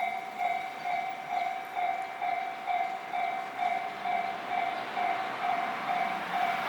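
Japanese level crossing warning bell ringing steadily, a two-tone electronic ding repeating about twice a second, which means a train is approaching the crossing.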